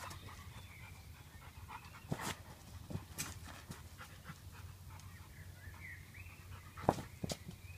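An American Staffordshire Terrier–Dogue de Bordeaux mix panting, with a few short sharp knocks, the loudest near the end.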